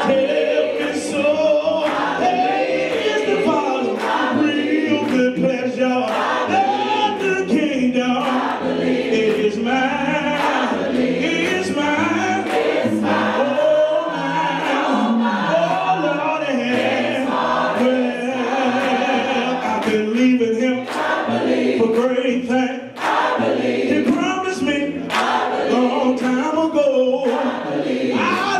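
Group of voices singing a gospel song together, with frequent sharp percussive hits throughout.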